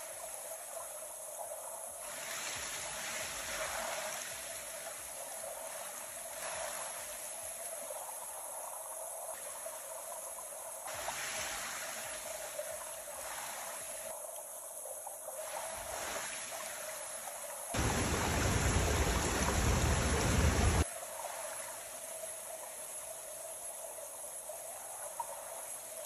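Rushing water of a waterfall stream, a steady rush that changes in tone at several points. About 18 seconds in, a louder, deeper rush lasts about three seconds.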